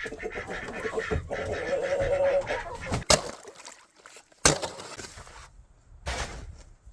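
Poultry calling, a steady honking call about a second in, then two sharp knocks and a third near the end.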